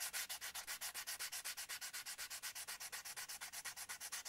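Hand sanding of a carved wooden part with sandpaper stuck on a balsa-wood stick: quick back-and-forth strokes at about eight a second, a steady rhythmic hiss, as the wood is shaped to a slight curve.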